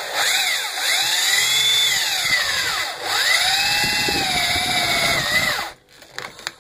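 Electric drill with a 6 mm bit boring through a ski pole's plastic handle and into the aluminium tube inside it. The motor's whine falls and rises several times as it slows under load and speeds up again, then stops near the end.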